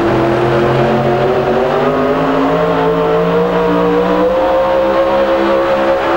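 Supercharged engine of a 1977 Chevy super modified pulling truck running at full throttle under load, its pitch climbing slowly and then holding high.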